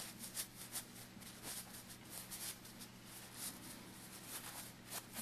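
Small fabric pillowcase rustling and scraping softly in irregular brief scratches as fingers and closed scissor tips work it right side out, over a faint steady hum.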